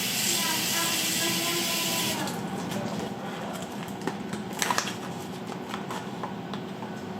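Water spraying from a kitchen faucet's spray head, shut off about two seconds in, followed by a few light knocks about four and a half seconds in.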